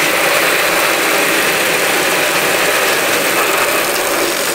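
Water spray hitting bare, unpainted corrugated metal roofing sheet, giving a steady, dense rushing noise that starts abruptly. This is a simulation of rain on an uninsulated metal roof.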